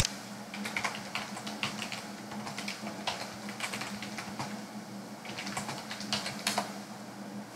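Typing on a computer keyboard: quick bursts of keystrokes with short pauses between them, over a low steady hum.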